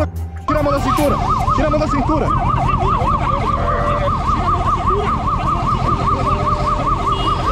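Police motorcycle siren in a fast yelp, its pitch sweeping up and down several times a second without a break, over a steady low engine rumble. It starts about half a second in, after a brief drop in level.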